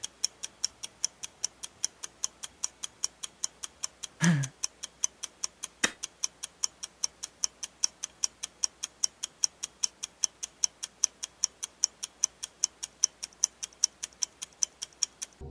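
Clock ticking steadily, about four ticks a second. About four seconds in there is a brief low voice falling in pitch, and near six seconds a single sharper click.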